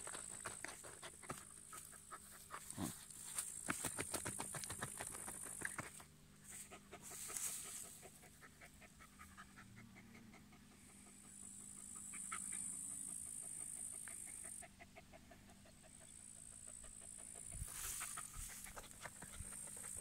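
Dog digging a hole in grassy soil with its front paws: rapid scratching and scraping of earth, busiest in the first few seconds and coming in shorter spells after.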